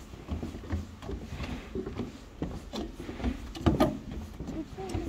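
Footsteps on the planks of a wooden boardwalk, an irregular run of knocks, the loudest a little past halfway.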